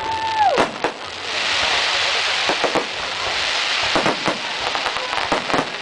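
Fireworks display: sharp bangs of bursting shells, then from about a second in a long hissing crackle like rain as the sparks burn out, with more bangs through it. A short rising-and-falling tone is heard right at the start.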